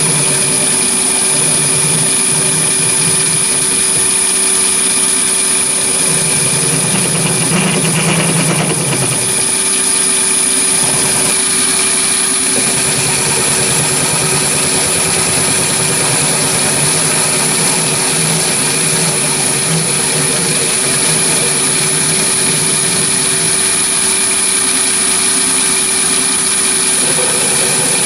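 Chinese mini lathe, driven by a three-phase motor on a variable frequency drive, running steadily while a tool faces off the rough-sawn end of a hard steel bar. A constant high whine runs throughout.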